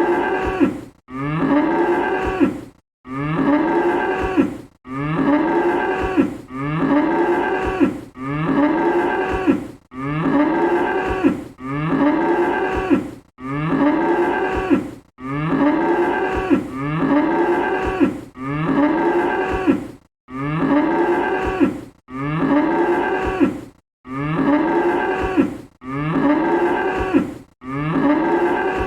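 A cow mooing: the same single moo repeated over and over, about one every two seconds. Each moo rises and then falls in pitch.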